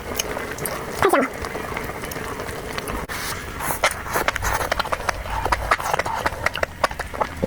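Close-miked eating sounds: chewing with many quick wet clicks and smacks of the mouth, and a brief falling vocal sound about a second in.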